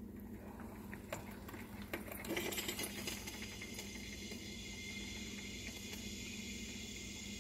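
Brand-new Black & Decker drip coffee maker switched on: a few clicks, then about two seconds in a crackle and a steady high-pitched buzzing over a low hum. It is the weird noise the new, faulty machine makes instead of brewing.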